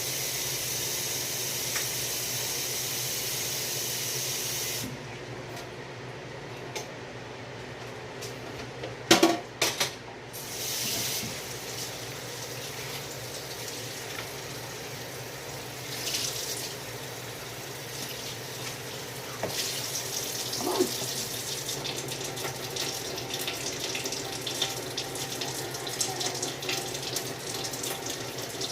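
Water running from a kitchen tap into a sink. It runs steadily, then drops back about five seconds in. Loud clatters come about nine to ten seconds in, with more small knocks and splashing later on.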